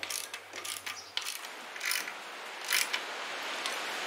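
Hand ratchet wrench clicking in short bursts, roughly one stroke every second or less, as the nuts on an exhaust manifold heat shield are run down snug.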